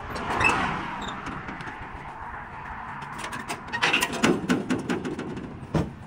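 Metal clanks and knocks as the side gates of a light truck's cargo bed are unlatched and let down, with one sharp knock near the end. A rush of passing highway traffic swells near the start.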